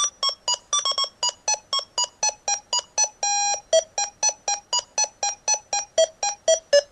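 Electronic beeping tune: short bright beeps, about four a second, stepping through a melody, with one longer held note about three seconds in. The notes sit lower in pitch later in the run.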